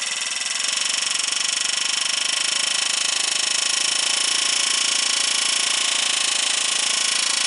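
Pneumatic air hammer chattering steadily and rapidly, its blunt bit held against a small Briggs and Stratton engine's steel crankshaft beside the pulley hub. The trigger is only barely pulled, tapping to break up the rust around a seized pulley set screw.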